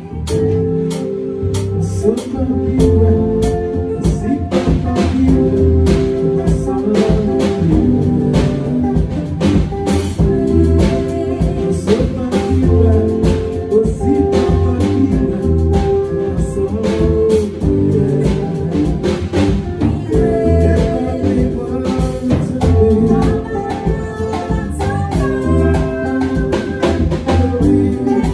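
Yamaha portable electronic keyboard played, a melody and chords over a steady drum beat and bass line.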